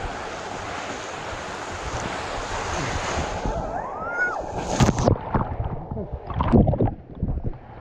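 Rushing water, steady for about three seconds, as someone slides down a natural rock waterslide, then a short rising sound and a run of irregular splashes and knocks in the pool.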